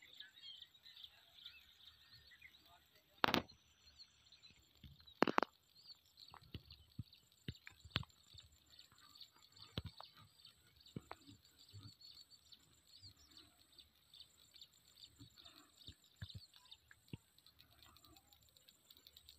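Faint open-field ambience: many small bird chirps, with scattered clicks and two louder knocks about three and five seconds in.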